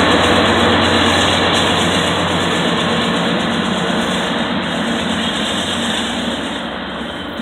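Union Pacific diesel locomotives passing at close range: a steady engine drone with wheel and rail noise, fading gradually as they move away.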